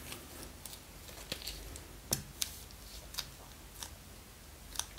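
A small plastic bag crinkling and clicking as it is handled and squeezed, in scattered, irregular short crackles.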